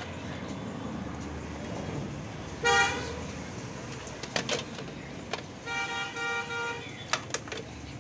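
Vehicle horn over steady street noise: a short toot about three seconds in and a longer one of about a second near six seconds in. A few sharp clicks fall between and after them.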